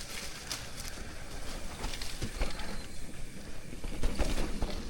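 Mountain bike riding down a dirt trail: steady tyre and rolling noise with scattered knocks and rattles from the bike.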